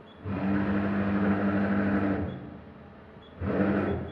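CNC milling machine axis drive jogging the Y axis: the servo motor and ballscrew run with a steady two-tone whine for about two seconds and stop, then run again briefly near the end.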